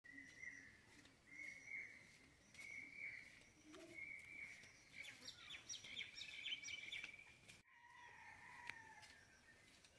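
Faint birdsong: a short call repeating about once a second, with a flurry of quick chirps in the middle.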